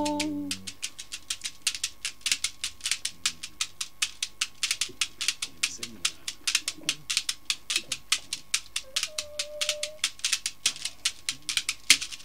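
Beaded gourd shaker played on its own in a steady rhythm, about five shakes a second, as the a cappella singing breaks off at the start. Faint voices murmur underneath.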